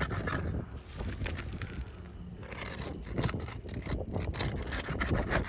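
Asphalt roof shingles being pried up with their adhesive seals breaking: irregular scraping and crackling over a steady low rumble.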